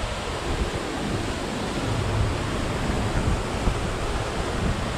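Waterfall rushing steadily, running full with water after recent rain, with wind buffeting the microphone in a low, uneven rumble.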